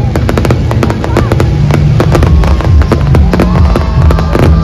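Aerial fireworks going off in quick succession, many sharp bangs and crackles a second. Loud music with a heavy bass line plays underneath.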